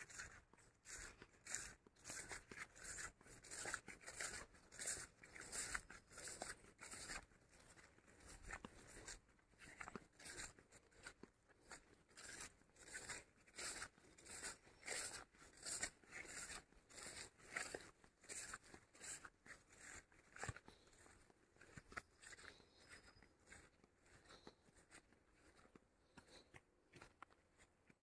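Footsteps swishing and crunching through long grass and weeds, about two steps a second and fainter in the last few seconds.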